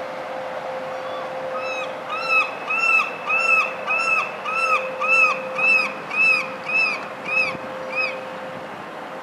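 A steady machine-like drone holds one tone while a bird calls a run of about a dozen short notes, each rising and falling in pitch, about two a second. The calls start about a second and a half in and stop near the end.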